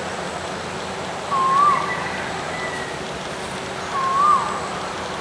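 A short animal call that rises and then drops quickly in pitch, heard twice about three seconds apart over a steady hiss of background ambience.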